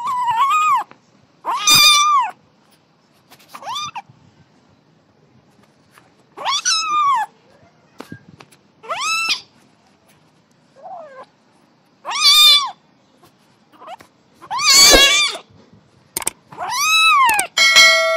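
A kitten meowing repeatedly: about nine high-pitched meows, each rising and then falling in pitch, one to three seconds apart, some much fainter than others.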